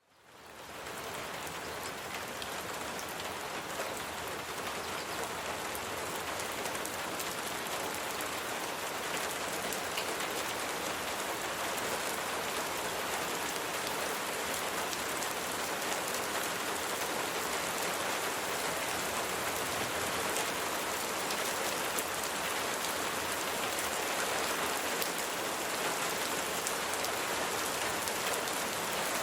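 Steady rain falling on a surface, an even hiss of many drops with fine individual patters, fading in over the first second.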